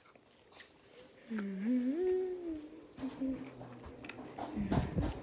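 A girl humming a few wordless notes, starting about a second in, that rise, hold and fall like a short tune, followed by a couple of shorter hummed notes. Near the end comes a brief, loud rustling thump.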